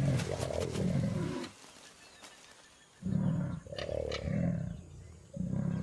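Jaguars growling and snarling at each other in a rough courtship scuffle between a male and a female. The calls come as a run of short, loud, low bursts, with a lull of about a second and a half a little way in, then several more bursts.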